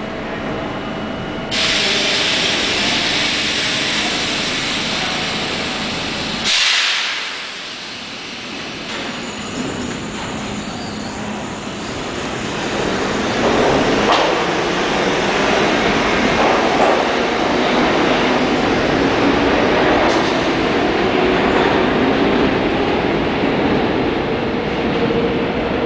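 New York City subway train in a station: a loud hiss of air comes in about a second and a half in, and later the train's motors whine, rising slowly in pitch over rail and wheel noise as it gets under way.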